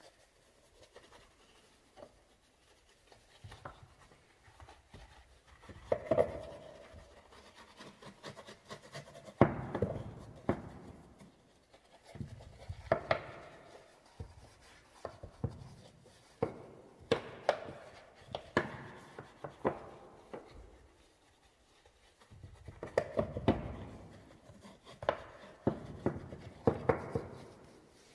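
A small detailing brush scrubbing a soapy painted door jamb and sill in short, irregular bouts of scratchy rubbing, with occasional sharp clicks.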